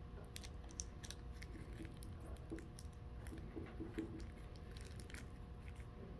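Dry-erase marker writing on a whiteboard: faint, scratchy strokes and small taps in quick, irregular succession, over a faint steady hum.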